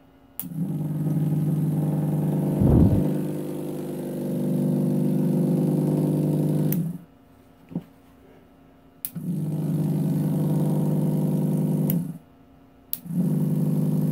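The small AC record-changer motor of a 1949 Admiral 6F11-N runs with a steady electrical hum. It is switched off and on twice, with a click at each change: it goes quiet for about two seconds past the middle, then for about a second near the end, and comes back each time. There is a single knock about three seconds in.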